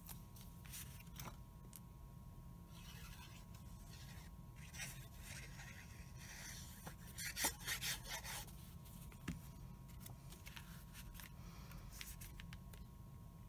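Cardstock being handled on a cutting mat: faint rustling, rubbing and scraping of paper, in bursts, with a few light clicks and taps.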